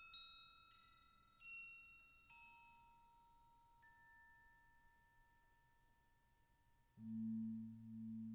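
Crotales struck one at a time, each high, pure note ringing on under the next, several different pitches in the first four seconds. About seven seconds in, a Javanese gong is struck: a low, much louder hum that swells and fades in waves.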